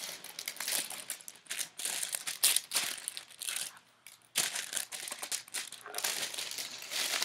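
Wrapping crinkling and rustling in irregular crackles as it is carefully pulled open by hand to unwrap a painting, with a short lull about four seconds in.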